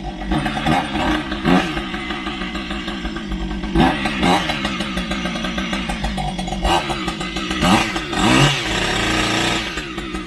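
Chainsaw engine running, its throttle opened and let back several times so the pitch rises and falls in short bursts between steadier running.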